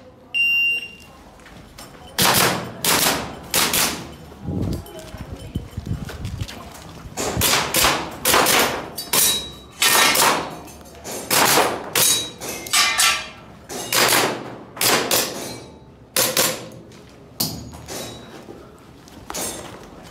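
A shot timer's short electronic start beep, then about two seconds later a long string of pistol shots, many fired in quick pairs.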